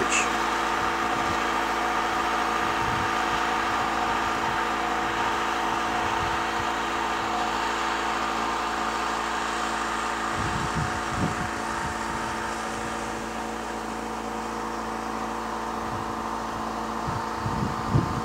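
Generator engine running with a steady, unchanging hum. A couple of brief low rumbles of wind or handling on the microphone come near the middle and again near the end.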